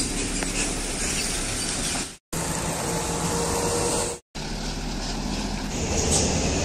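Light diesel truck engines running as the trucks drive along the road, heard in three short clips, each cut off abruptly with a brief silence between.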